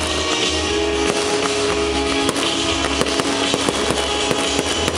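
Fireworks popping and crackling in many short, sharp reports over loud show music with sustained notes and a pulsing bass beat.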